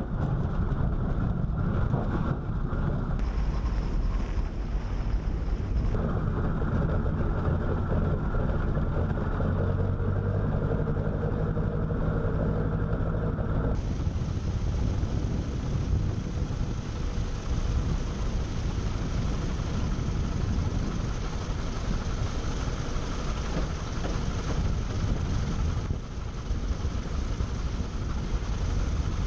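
Aircraft radial piston engine running at low power during a taxi on grass: a steady, rumbling drone. About 14 seconds in the sound changes abruptly to a hissier engine noise with more wind in it.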